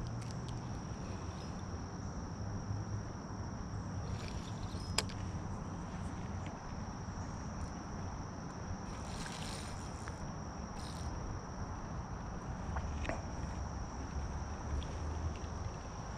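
A steady high-pitched insect drone over a low rumble, with a sharp click about five seconds in and a short hiss about nine seconds in.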